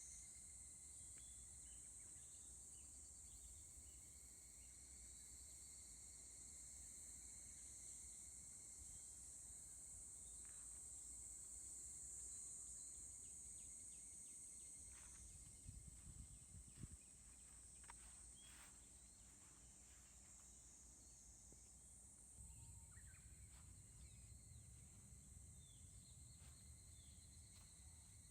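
Faint outdoor ambience: a steady high-pitched insect chorus, with a few brief faint chirps and clicks in the middle.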